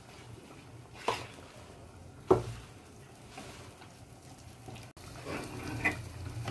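A wooden spatula knocks twice against the metal kadhai, the second knock louder, then stirs through a simmering curry gravy with soft scraping and sizzling.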